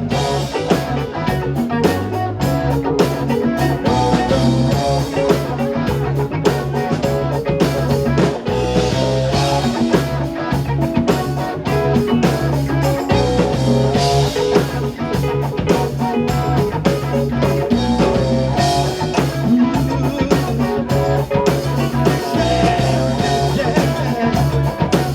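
Live rock band playing an instrumental passage: electric guitar over bass and a drum kit.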